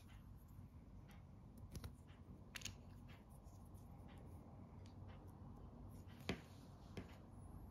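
Faint handling clicks of small plastic minifigure parts being pressed together by hand: a few light clicks and one sharper snap about six seconds in, over a low steady background hum.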